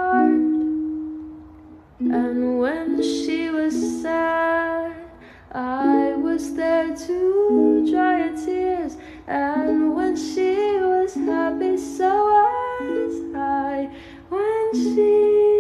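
Background music: a ukulele song with a singing voice.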